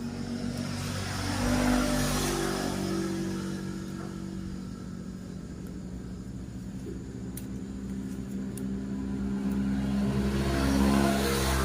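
Honda Vario scooter engine running steadily and revved up twice, about two seconds in and again near the end.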